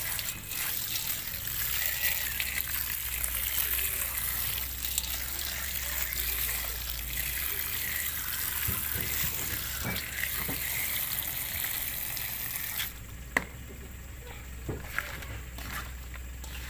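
A stream of running water pouring onto grasshoppers in a perforated aluminium colander as they are rinsed. The water stops about 13 s in, and a few light clicks and rustles follow as a hand stirs the wet insects.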